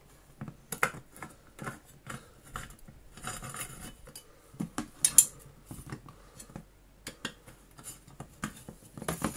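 A screwdriver turning small screws into the cast aluminium air duct of a 1960s Hoover Junior 1334A vacuum cleaner, with irregular metallic clicks and scrapes. The loudest, sharpest scrape comes about five seconds in.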